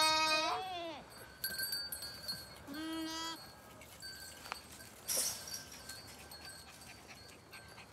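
Goat kids bleating twice: a long, quavering bleat at the start and a shorter, steadier one about three seconds in. A brief scuffing noise follows about five seconds in.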